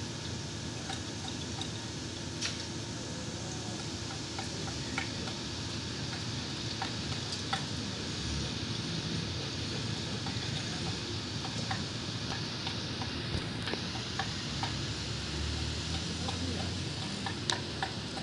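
Steady outdoor background hiss with scattered faint ticks and clicks.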